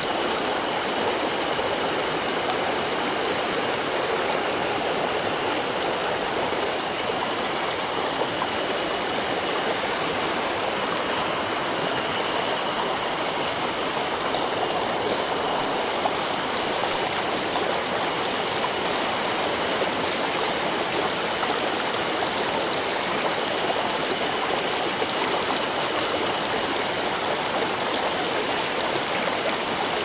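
Mountain stream water rushing over rocks, a steady, even rush.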